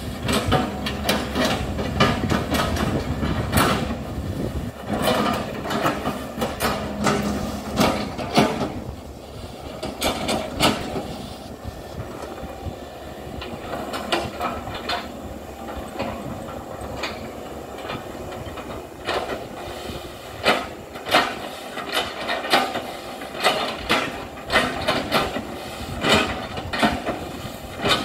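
Hitachi excavator working, its engine running under frequent irregular knocks and cracks as the bucket chops oil palm trunks. The knocks thin out for a while in the middle, then come thick again.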